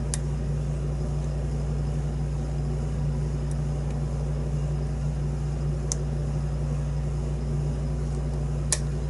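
A few faint clicks of a lock pick working the pins of a pin-tumbler lock, the last near the end as a pin sets, over a steady low hum.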